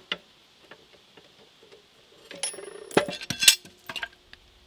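Steel bar clamps clinking and clanking against a tractor clutch assembly on a steel bench as they are worked and taken off. A couple of light clicks at the start, then a dense cluster of sharp metal knocks with ringing about halfway through, the loudest around three and a half seconds in.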